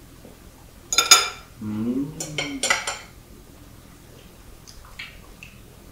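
Metal forks clinking against ceramic serving bowls as food is picked from them: one sharp clink about a second in, then a quick cluster of clinks a second later, and a few faint taps near the end.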